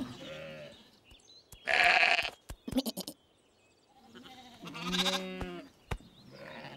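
Cartoon sheep characters bleating in a few separate calls, one loud one about two seconds in and a wavering one past the middle, with a few sharp clicks in between.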